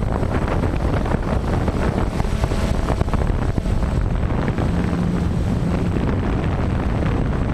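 Wind buffeting the microphone: a steady, rough, rumbling noise with no distinct tones.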